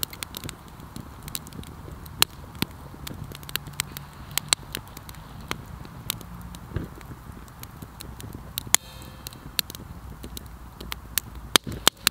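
Small wood campfire crackling, with sharp pops at irregular intervals.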